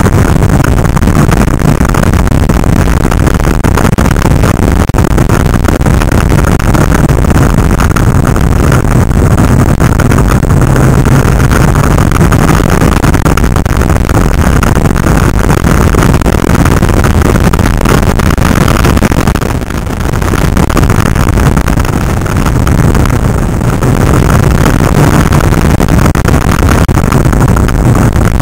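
Motorcycle engine running at road speed under heavy wind noise on the microphone, the engine note rising and falling a little. About two-thirds of the way through, the sound briefly drops.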